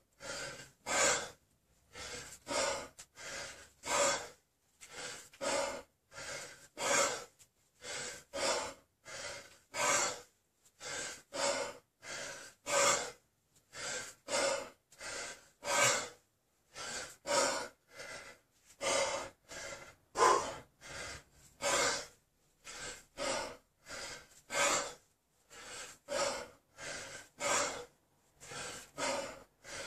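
A man breathing hard and rhythmically from the strain of a long set of kettlebell snatches: short forceful breaths, about two a second, kept up without a break.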